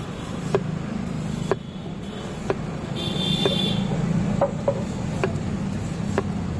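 Knife chops cutting watermelon on a board: sharp knocks with a short ring, about one a second, over a steady hum of street noise.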